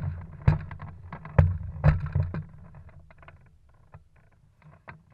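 Wind gusting on a hang glider's mounted camera microphone, with a run of sharp clicks and knocks. The gusts and knocks are strongest in the first half, then thin out to faint scattered clicks after about three seconds.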